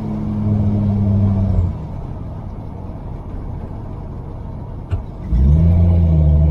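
The engine of a 1949 Rover P3 on the move, heard through a downshift: about two seconds in, the engine note falls away to a quieter rumble as the throttle is lifted. A click comes near five seconds, then the engine note comes back strongly and holds steady as the car pulls away in third gear.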